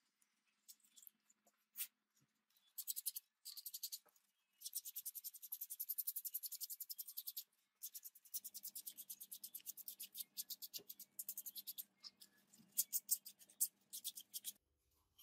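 A hand-held abrasive tool scraping back and forth along the edge of a white foam block, shaping it. The strokes come several a second in quick runs broken by short pauses.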